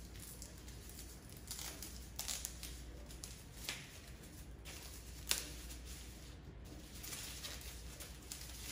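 Thin white wrapping being unrolled from a remote control, rustling and crinkling in scattered soft crackles, with one sharper snap about five seconds in.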